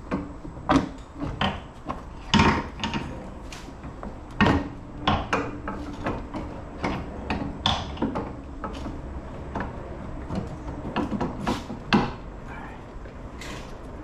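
A run of irregular metal clanks, knocks and light rattles as car suspension parts and hand tools are handled and fitted.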